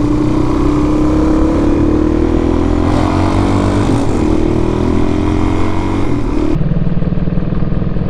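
127cc single-cylinder four-stroke engine (a Honda-copy 154FMI) of a small Chinese sportbike pulling hard under way. Its pitch climbs steadily, dips briefly at about 3 and 4 seconds as it shifts gears, and climbs again. About six and a half seconds in, the note drops suddenly to a lower, steady pitch.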